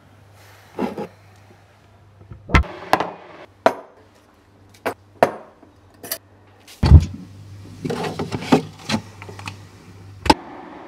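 Kitchen handling noises: a run of separate knocks and clinks from a mug and a glass clip-top jar being handled on a worktop, a heavy thud about seven seconds in, a flurry of small knocks after it and a sharp click near the end, over a faint steady low hum.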